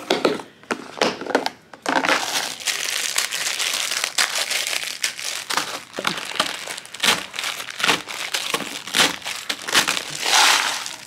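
Packet of instant noodles being handled and crushed by hand: the plastic wrapper crinkles and crackles in irregular bursts, with crunching.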